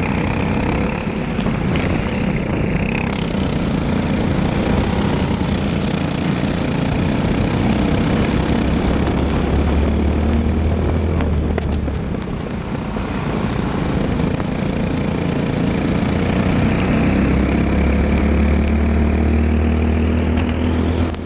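Briggs & Stratton single-cylinder four-stroke kart engine running at race pace, heard from on board, with a hiss of spray from a wet track. About twelve seconds in its revs fall as the kart slows, then climb again as it accelerates.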